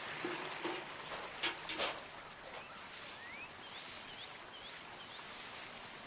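Steady rush of running water, with a few soft knocks in the first two seconds, then a string of about six short, high, upward-sweeping bird chirps.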